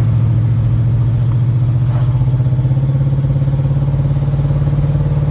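360 cubic-inch (5.9 L) V8 running steadily, its pitch rising slightly about two seconds in.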